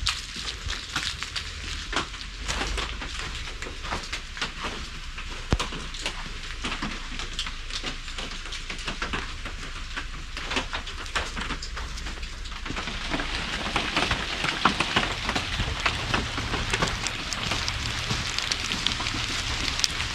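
Steady rain falling, with many separate drops pattering; the rain sounds fuller and a little louder from about two-thirds of the way through.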